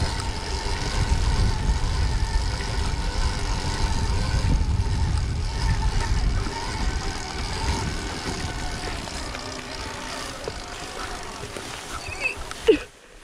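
Stark Varg electric dirt bike being ridden over bumpy grass: a steady whine from the electric drive under heavy wind rumble on the microphone. It eases off over the second half, with a sharp knock near the end.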